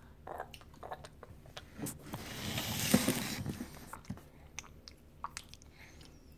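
A hand rubbing over the phone's microphone makes a rustling noise from about two seconds in that peaks around three seconds and fades by four. Around it come a baby's soft mouth clicks and smacks while eating.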